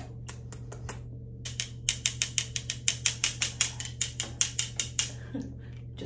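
A quick run of sharp mechanical clicks, about six a second, over a steady low hum.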